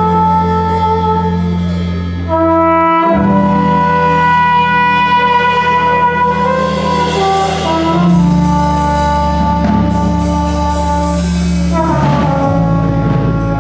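Small jazz band playing live: trumpet and trombone holding sustained chords over a rhythm section with bass, the harmony changing every few seconds.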